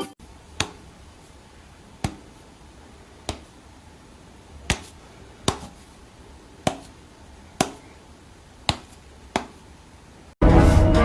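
About nine sharp single taps or clicks at uneven intervals over a faint steady hiss. Music starts abruptly near the end.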